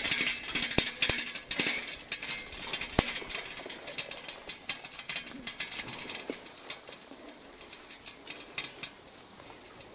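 Grass swishing and crackling against the legs of someone walking through a tall meadow, with scattered footfalls. The rustling fades after about five or six seconds, leaving a faint steady outdoor background.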